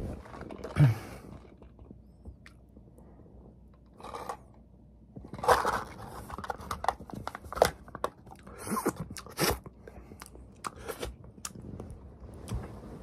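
A Billotte yogurt cup being handled and its foil lid peeled open, giving irregular bursts of plastic crackling and clicks, loudest about halfway through.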